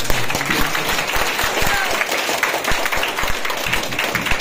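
Audience applauding: a dense, steady patter of hand claps, with a few voices underneath.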